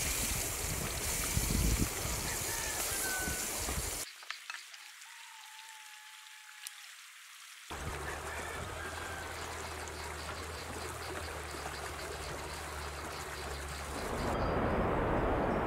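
Shallow stream rushing and gurgling over rocks, a steady wash of water noise, with a few short bird chirps in the quieter stretches. A louder hiss takes over near the end.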